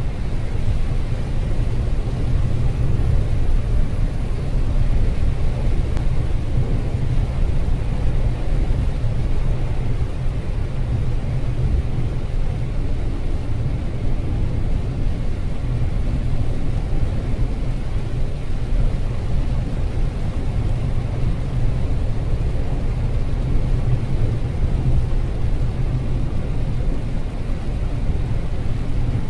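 Car driving at highway speed on a rain-soaked road, heard from inside the cabin: a steady low road and engine rumble with a fainter hiss of tyres on wet pavement and rain.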